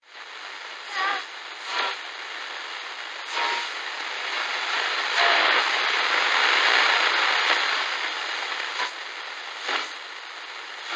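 Steady static-like hiss that swells in the middle and eases toward the end, broken by a few brief crackles with faint short tones.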